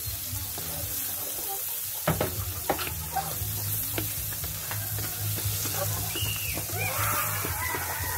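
Diced red onion frying in melted butter in a nonstick pan, sizzling steadily. A spatula stirs and scrapes against the pan, with a couple of sharp knocks about two seconds in.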